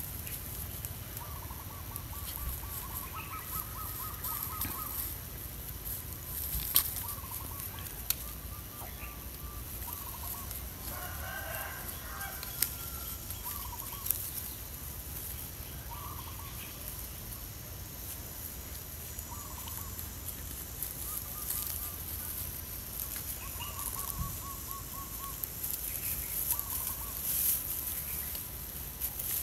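Chickens clucking on and off in short, trilled calls, with a few sharp clicks in between.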